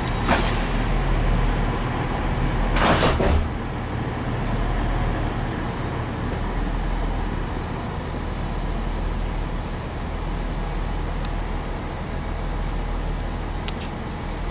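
Passenger train running, heard from inside the carriage: a steady low rumble, with a loud rushing burst about three seconds in and a few sharp clicks near the end.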